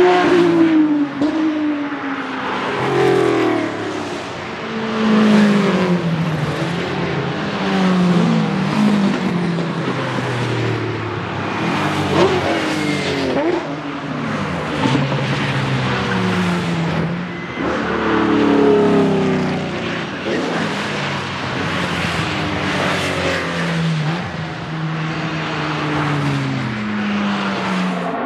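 Race cars driving hard through a bend one after another, their engines revving up and dropping in pitch again and again as they shift gears and lift off.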